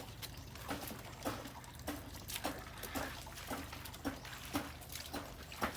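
Faint, irregular small splashes and trickling of pond water, a few light drips or ticks each second.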